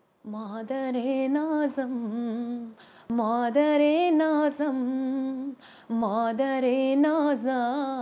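A woman singing an Afghan song unaccompanied: a slow, wavering, ornamented melody in three long phrases, with short breaths between them.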